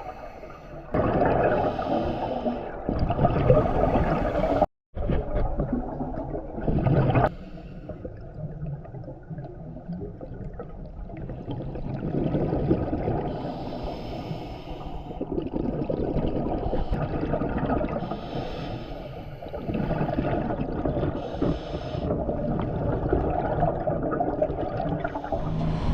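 Underwater scuba breathing: a diver's regulator hissing on each inhale and exhaled bubbles gurgling out, in swells every few seconds. The sound cuts out abruptly for a moment about five seconds in.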